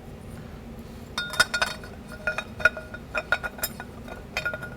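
Steel forward clutch apply plate of a 4L60E input drum clinking against the drum and piston as it is turned to line up its tabs: a quick series of light metallic clinks with a ringing tone, starting about a second in.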